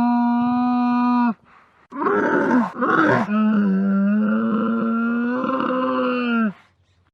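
Camel calling: a long, steady, low-pitched call cuts off about a second in. After a short pause comes a rough, gurgling grunt, then a second long call that stops shortly before the end.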